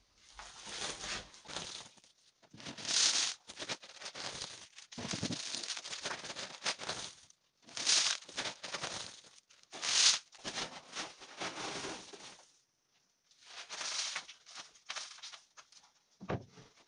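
Threshed buckwheat being scooped out of a woven polypropylene sack with a plastic scoop and poured onto a wire-mesh drying tray: rustling and pattering grain in repeated bursts, one every couple of seconds.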